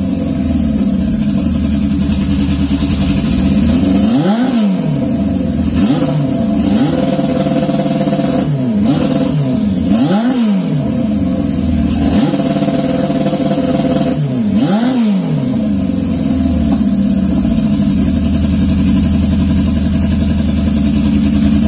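Turbocharged Honda CB750 SOHC inline-four drag-bike engine running, blipped up and back down about half a dozen times in the first fifteen seconds, each rev with a sharp crack, then running steadily. The revs are tries of the two-step launch limiter, which still needs more boost off the hit.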